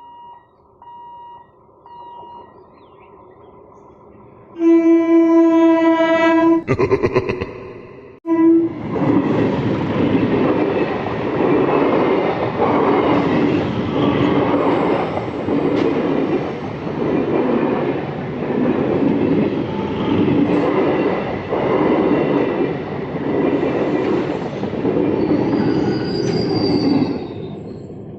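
Faint repeating beeps, then an EMU local train sounds a long horn blast and a shorter broken one, and passes with a loud rhythmic clatter of wheels over the rails, pulsing about every second and a half as the coaches go by, dropping away near the end.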